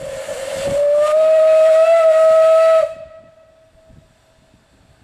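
Steam whistle of a Beyer Peacock 2-4-0 tank engine blown once for about three seconds, its pitch rising slightly at first, over a rush of escaping steam, then cutting off with a faint trailing note.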